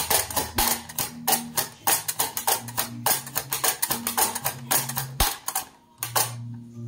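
A potato being sliced on a mandoline: quick scraping strokes across the blade, several a second, that stop near the end. Low background music plays underneath.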